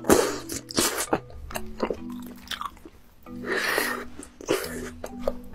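Close-miked mouth sounds of someone eating tteokbokki: bites and chewing, with several sharp crunches in the first two seconds.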